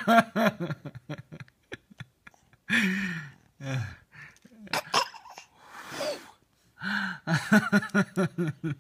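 Baby girl giggling in quick runs of short, rapid laughs, with puffs of breath blown at her in between.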